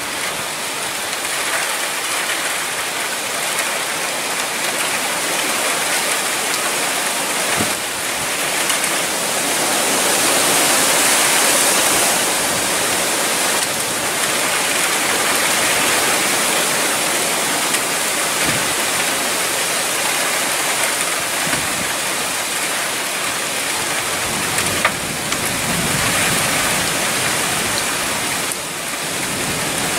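Strong thunderstorm wind with rain: a loud, steady rushing noise that swells in gusts, loudest about ten seconds in.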